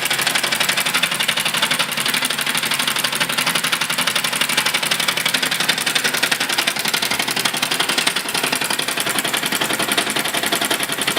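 Small model engine running steadily, its fast even beat of clicks and exhaust puffs holding the same speed throughout.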